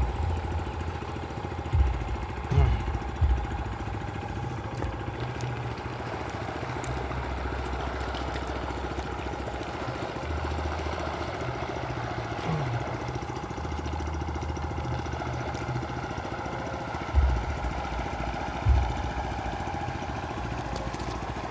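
A small motor running steadily in the background, with a few short low thumps near the start and again near the end.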